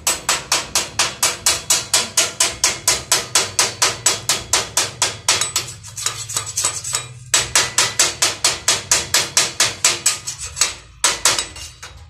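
Rapid metal-on-metal hammering: a length of square steel tube struck again and again against a freshly welded steel-tube frame joint, about four ringing blows a second, with a short pause a little before halfway and another near the end.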